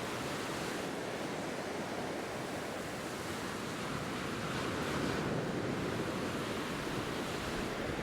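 Ocean surf washing steadily up the beach, swelling a little about five seconds in.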